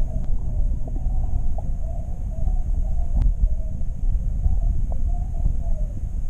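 Steady low underwater rumble inside an aquarium, picked up by a submerged camera, with a faint wavering hum above it and a few light clicks.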